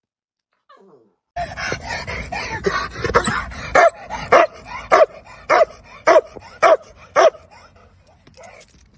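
A dog barking: a busy, noisy stretch, then a run of about seven evenly spaced barks, nearly two a second, before it quietens.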